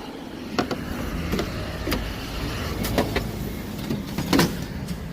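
Irregular clicks and knocks, about seven in five seconds, over a low steady hum.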